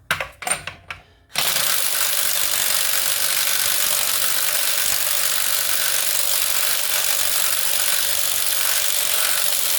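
A few ratchet clicks, then about a second and a half in a power tool starts and runs with a steady, loud hiss for about eight seconds before cutting off, working the loosened 32 mm front axle nut on a Ford Explorer wheel hub.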